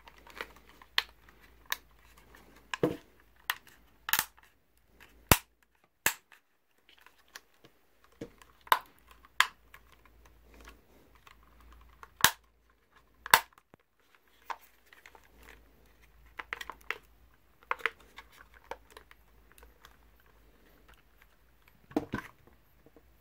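DJI Mavic Pro drone's plastic casing being pressed down around the body, its clips snapping into place. The result is a string of sharp plastic clicks and snaps at irregular intervals, a few much louder than the rest, with handling rustle between.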